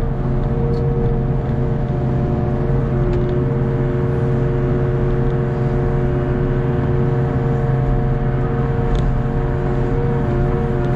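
Hitachi ZX48U mini excavator's diesel engine running steadily under digging load, with a steady hydraulic whine over a low hum that shifts slightly in pitch as the arm and bucket work in wet mud.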